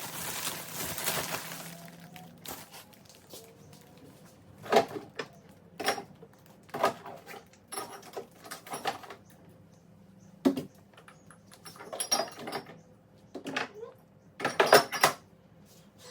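Containers and jars being handled and set down on fridge shelves: irregular knocks and clatters, some ringing briefly, after a short rustling hiss at the start.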